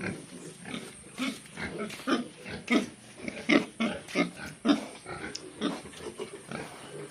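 Pigs grunting in short, repeated calls, about two a second.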